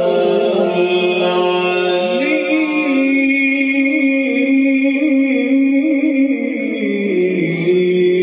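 A man reciting the Quran in the slow, melodic tilawat style, drawing out long held notes that slide between pitches. The voice steps up in pitch about two seconds in and falls back near the end.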